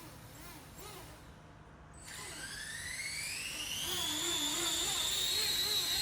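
Electric RC helicopter's brushless motor and rotor spooling up. A whine starts about two seconds in, climbs steadily in pitch and loudness, then levels off as the rotor reaches flying speed.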